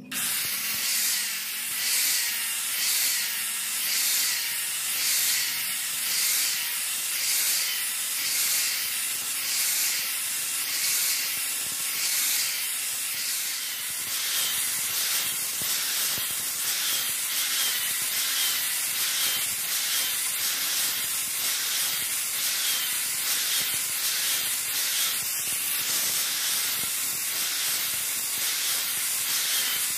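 Angle grinder with a sanding disc working the flat of a steel sword blade cut from a motorcycle brake disc: a steady high hiss that swells and eases with each stroke of the disc along the blade, about once a second, faster in the second half.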